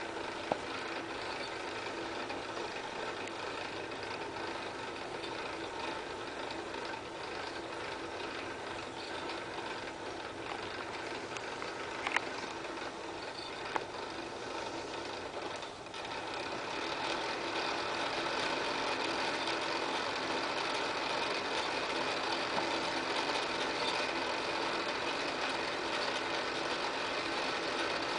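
Small film projector running, its motor and film-advance mechanism making a steady mechanical whirr, with a couple of sharp clicks about halfway and a slight rise in level just after.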